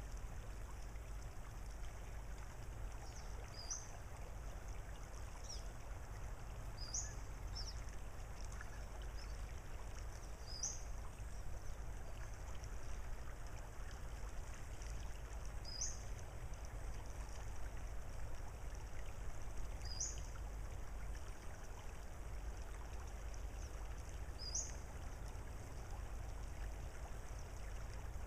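Calm outdoor ambience: a steady low rumble under a faint hiss, with a bird's short, high, rising call repeated every few seconds.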